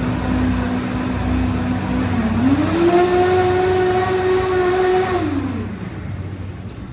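Vehicle driving with steady engine and road rumble; a whine rises in pitch about two seconds in, holds, and drops back down near the end.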